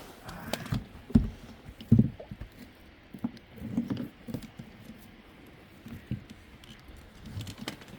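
Sheep hooves shuffling and trampling in a pen: irregular scuffling and patter, with two louder knocks about one and two seconds in.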